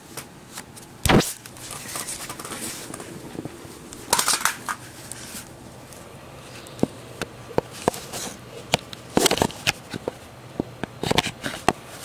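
Scattered sharp clicks and knocks with a few brief rustles, and a louder thump about a second in.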